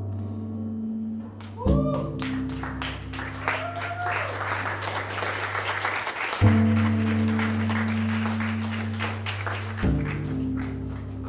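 Low cello notes, plucked and left ringing, a new one struck about two seconds in, again past the middle and once more near the end. Scattered audience applause runs over them, thickest in the first half.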